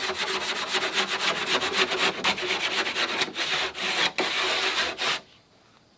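Drywall rasp scraped quickly back and forth along the freshly cut edge of a 5/8-inch gypsum drywall sheet, smoothing off the rough break. The run of rasping strokes stops abruptly about five seconds in.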